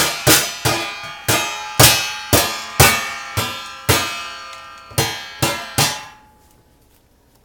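A drinking cup banged again and again on the domed lid of a stainless steel kitchen bin, about eleven uneven strikes, each leaving the metal lid ringing. The banging stops about six seconds in.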